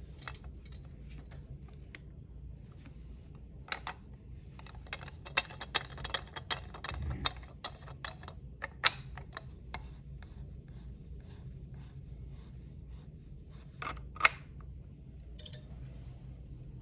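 Handling noise from a gooseneck phone holder's plastic phone clamp and threaded screw-clamp mount: scattered clicks, taps and rubbing as the parts are turned and fitted. Two sharper clicks stand out, about nine seconds in and about fourteen seconds in, over a low steady hum.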